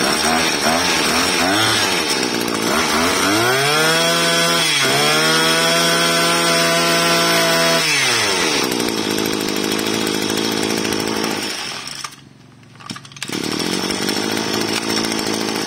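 Small 23cc two-stroke brush cutter engine running. It idles, is revved up to a high steady pitch from about three seconds in for roughly four seconds, then falls back to idle. Near the end it drops out for about a second and then runs again.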